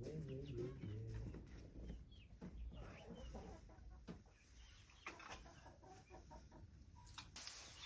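Chickens clucking softly in short scattered calls. Near the end, a steady rustling hiss sets in.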